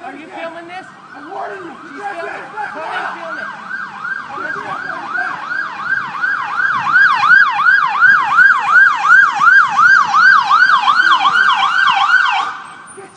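Emergency vehicle siren in fast yelp mode, about two and a half sweeps a second, growing steadily louder and cutting off suddenly near the end.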